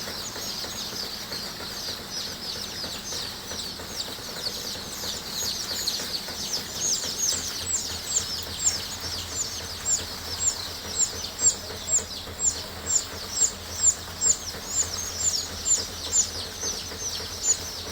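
Many chicks peeping: a dense chorus of short, high peeps, each falling in pitch. In the second half one louder peep repeats about twice a second.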